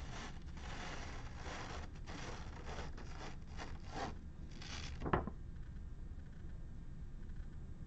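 A sheet of paper rustling and sliding across a tabletop in a series of brushing strokes, ending in one sharper rustle about five seconds in. After that only a faint low hum remains.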